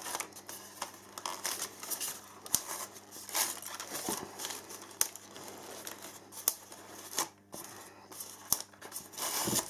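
Polystyrene foam packing being pried and rubbed by hand, giving irregular squeaky scrapes, crackles and clicks as the charger and battery are worked loose.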